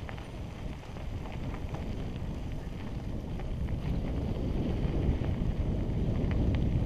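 Wind rushing over a helmet camera's microphone on a moving mountain bike, with mountain bike tyres rolling on a dirt trail and a few light clicks and rattles. It grows gradually louder toward the end.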